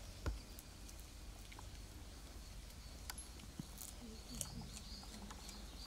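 Red pandas eating chopped carrot and apple: faint chewing and crunching with scattered small clicks, and one sharper knock just after the start.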